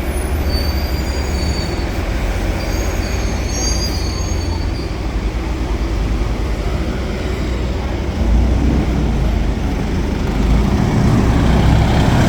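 Optare Solo single-deck bus with an Allison automatic gearbox running, a steady low rumble with several short high-pitched squeals in the first few seconds. The rumble grows louder about eight seconds in and again near the end.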